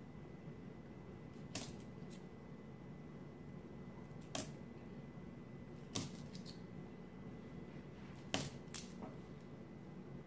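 Nickels clicking against one another as they are handled and set down, about five short, sharp clinks a couple of seconds apart, two of them close together near the end.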